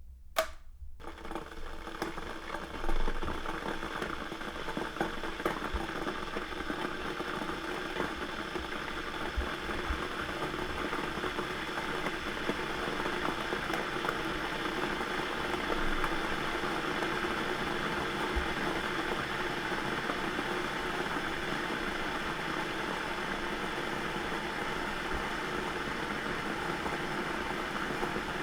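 Electric kettle switched on with a click, then the water starts heating with a steady rushing noise that slowly grows louder.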